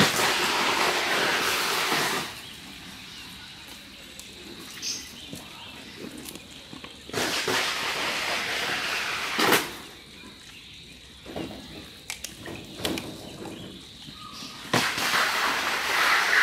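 Giant panda crunching and chewing bamboo in three bursts, with sharp snaps among the crunching: at the start, around the middle and near the end.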